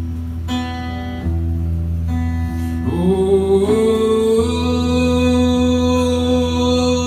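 Live acoustic guitar playing over a steady low drone. About three seconds in, a singing voice slides up and holds one long note.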